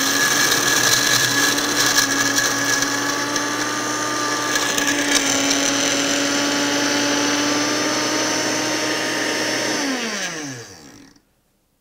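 A 600-watt Farberware blender runs on its high ice crush setting with a jar full of ice cubes: a steady, loud motor whine with the ice rattling. About ten seconds in it shuts off, and the pitch falls as it spins down. The ice has not been crushed into snow.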